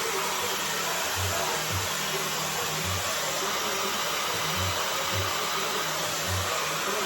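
Dyson hair dryer with its diffuser attachment blowing steadily: an even, unbroken rush of air.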